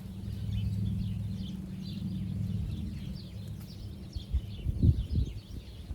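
Small birds chirping over a steady low hum. Handling thumps and rustles come about five seconds in, loudest there, as hands work the soil.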